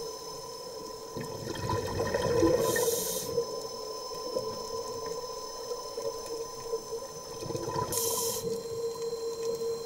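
Underwater sound of scuba divers riding a twin-propeller underwater scooter: the scooter's motor gives a steady whine. Twice, about 2–3 s in and again about 8 s in, a diver's breath through the regulator is heard as a bubbling rumble and a short hiss.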